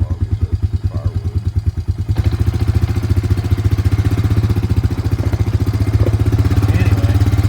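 An engine running with a slow, even beat, then picking up speed about two seconds in and running steadily faster and louder.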